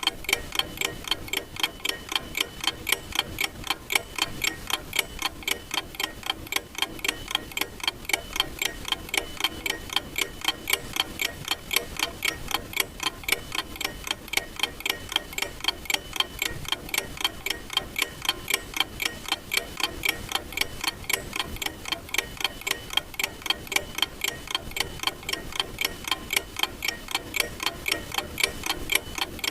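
Clock ticking steadily, with sharp, evenly spaced ticks.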